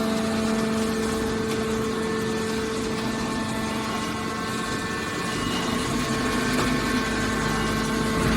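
Hydraulic scrap metal baler's power unit running with a steady hum and whine, its motor and hydraulic pump holding a constant pitch.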